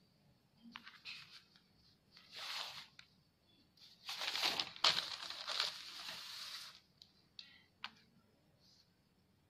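Checked cotton fabric rustling as it is folded and smoothed by hand, in two stretches, the second longer and louder, with a few light clicks and taps, one of them as a metal ruler is laid on the cloth near the end.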